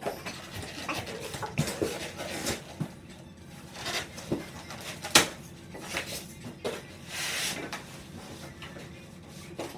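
Hard acrylic makeup case and its styrofoam packing being handled and worked out of the box: irregular clicks and knocks of plastic, a sharp knock about five seconds in, and a scraping rustle around seven seconds.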